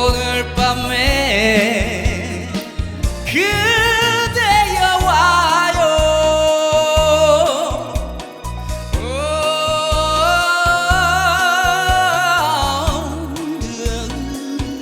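Male vocalist singing long, wordless held notes with vibrato over a band accompaniment: two sustained notes, each sliding up into place, the first about four seconds in and the second about nine seconds in.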